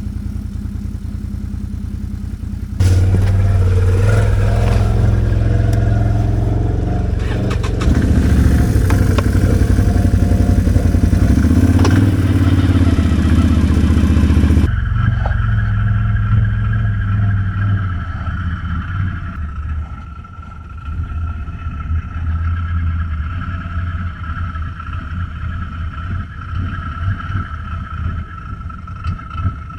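Quad bike (ATV) engine running under load off-road, revving with a loud rush of noise for about twelve seconds from about three seconds in. It then settles to a steadier low drone with a thin, steady high whine.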